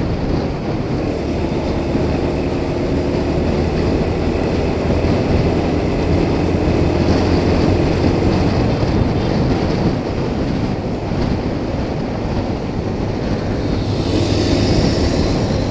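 Motorcycle cruising at highway speed: steady wind rush on the microphone over the engine's even drone. A brief brighter hiss comes near the end.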